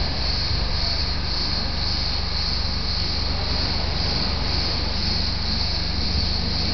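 A steady insect chorus, high-pitched and pulsing about twice a second, over a low steady hum.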